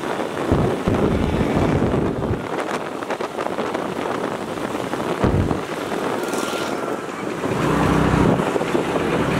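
Wind rushing over the microphone of a moving motor scooter, with its engine and road noise underneath. Heavy low gusts buffet the microphone several times, and an engine hum swells near the end.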